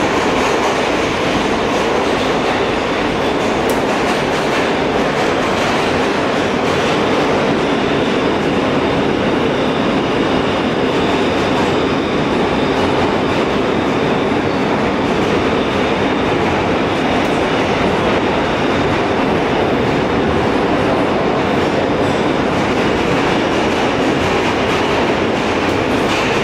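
A New York City subway car running through a tunnel, heard from inside the car: the steady noise of the wheels on the rails and the running gear, with a faint high whine above it.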